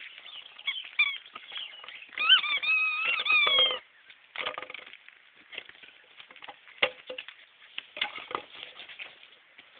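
Akita puppy giving one high, wavering whine about two seconds in that lasts under two seconds, with scattered short clicks and chirps around it.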